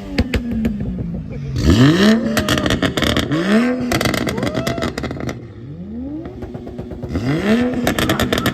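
A drifting car's engine revving hard in repeated surges, the pitch climbing and falling about every second or two, with a rough hiss and rapid crackling on each surge.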